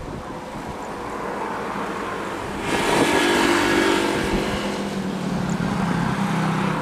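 Boeing 737-800 (BBJ2) jet engines on the takeoff roll: the engine noise builds steadily, jumps sharply about three seconds in as full thrust comes in, then settles into a steady low drone.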